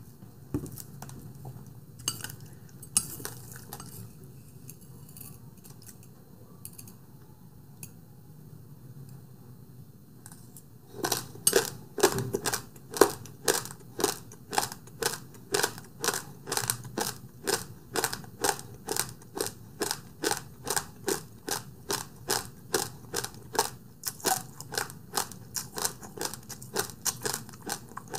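A few scattered clinks of a utensil on a dish, then, from about eleven seconds in, close-miked chewing in a steady rhythm of about two chews a second.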